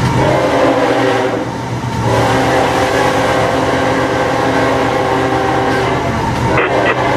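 Diesel locomotive's air horn sounding a chord in long blasts over the engine's steady drone, heard from inside the cab. There is a short break about a second in, then the horn sounds again. These are warning blasts for a grade crossing just ahead.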